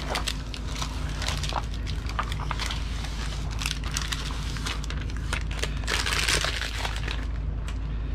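Black adhesive vinyl being peeled off its white backing and crumpled in the hand: irregular crackling and crinkling, busiest about six seconds in.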